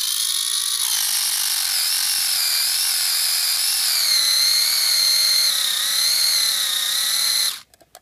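Electric motor and gears of a Sharper Image Jump Rover toy RC car whining at full throttle, its rear wheels spinning against concrete in a burnout attempt. The pitch dips about a second in, wavers, and the whine cuts off suddenly near the end.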